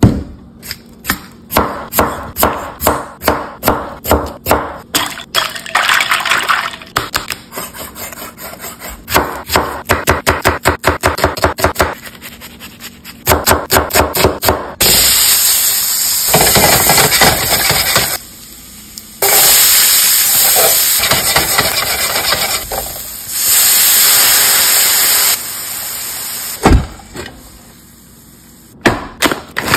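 A chef's knife chopping on an end-grain wooden cutting board in a steady run of strokes, about two a second, dicing onion. From about halfway, food sizzles loudly as it fries in a stainless steel pan, with a couple of short breaks and a single knock near the end.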